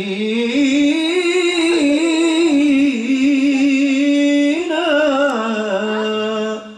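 A man singing one long melismatic phrase of an Islamic nashid on a held vowel, the voice wavering with ornaments and stepping up and down in pitch, then stopping abruptly near the end.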